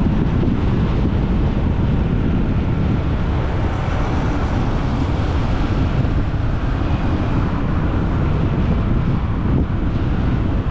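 Steady wind rumble on the microphone of a moving motorbike, mixed with road and traffic noise.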